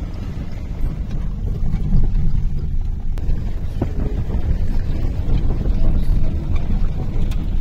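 Wind buffeting a phone microphone held at an open car window, with road noise from the moving car: a steady, loud low rumble.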